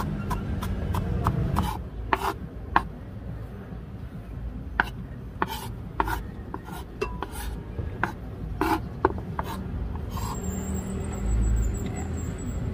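Chef's knife mincing Chinese celery on a wooden cutting board: sharp knocks of the blade on the board at an uneven pace, with the blade scraping across the wood. Near the end the minced celery is scraped off the board into a bowl. A low hum runs underneath in the first second or two.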